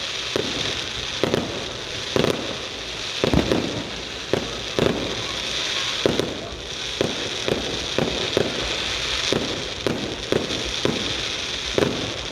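Fireworks going off: a quick, irregular string of bangs, one to three a second, over a steady crackling hiss.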